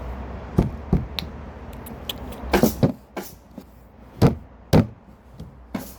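A run of irregular, sharp knocks and taps, about ten in all, the two loudest coming a little after four seconds in and just before five seconds.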